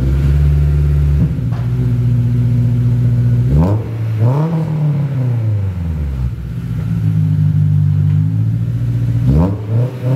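Honda S2000 inline-four, just started, running through its new Spoon N1 quad-tip exhaust at a steady idle. It is revved twice, at about three and a half seconds and again near the end, the pitch jumping up and falling back to idle each time.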